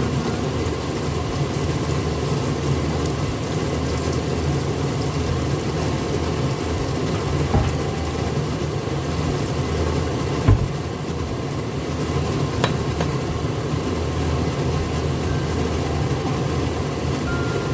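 Steady low hum of kitchen noise while rice turon fry in a pan of oil. A short low thump comes about ten and a half seconds in, and a sharp click near thirteen seconds.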